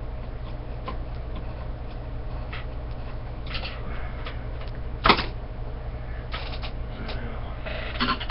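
Small clicks and rattles of aluminium antenna rods and brackets being handled and screwed together with a screwdriver, with one sharp metal clank about five seconds in. A steady low hum runs underneath.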